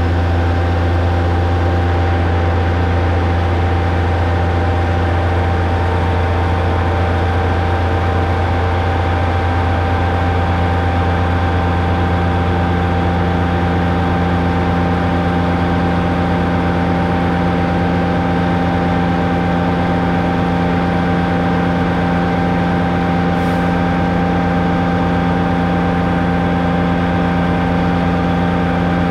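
DAF combination gully tanker's engine and pump running steadily under load for drain jetting: a constant low hum with a steady whine on top.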